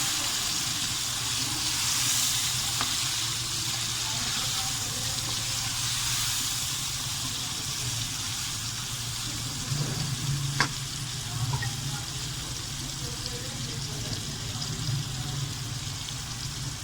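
Chicken, onions, tomatoes and green chillies frying in ghee in a pot: a steady sizzle, with one sharp click about ten seconds in.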